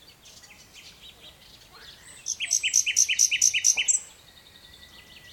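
Nightingale song. A few soft high notes are followed, about two seconds in, by a fast run of about eight repeated loud notes at roughly five a second, which breaks off near the four-second mark.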